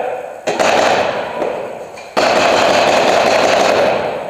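Two long bursts of rapid paintball marker fire, each starting suddenly and trailing off, the first about half a second in and the second just after two seconds.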